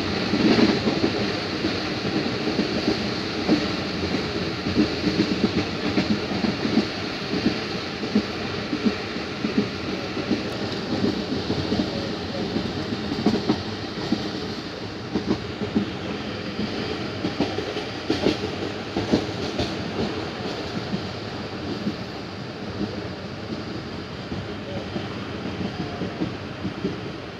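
Passenger train running at speed, heard from aboard: a steady rumble of wheels on the rails with frequent irregular clacks and knocks.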